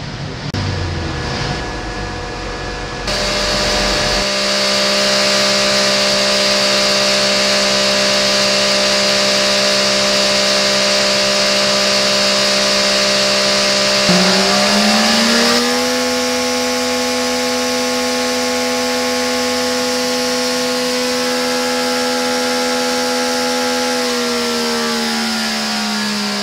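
MV Agusta inline-four motorcycle engine running on a test-bench dynamometer during its hot test. It is held at steady revs, stepped up to higher revs a little past halfway, then the revs fall away near the end.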